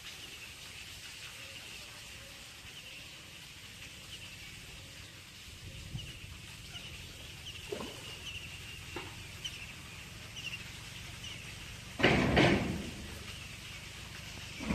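A hooked fish splashing and thrashing at the water's surface as it is pulled in on a hand line, loudest in a burst of splashing about twelve seconds in and again at the very end. Small birds chirp steadily throughout.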